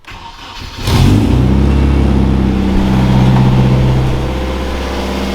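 Nissan KA24DE 2.4-litre four-cylinder being cranked, catching about a second in and then running steadily. The distributor timing is set by ear without a timing light, and the owner thinks it is still off.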